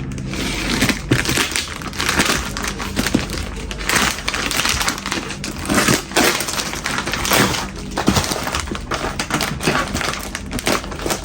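A parcel being handled and unwrapped: continuous crinkling and crackling of packaging, with irregular clicks and knocks.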